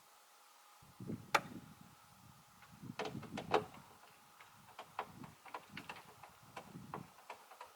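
Scattered light clicks and knocks of hand tools and fasteners, irregularly spaced, as the screws and locking device are refitted to the roof; the sharpest click comes about a second and a half in.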